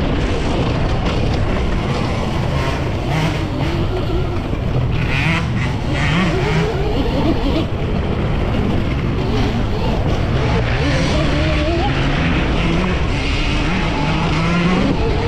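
Electric dirt bike's QS138 brushless motor whining, its pitch rising and falling with the throttle, over a steady low rumble.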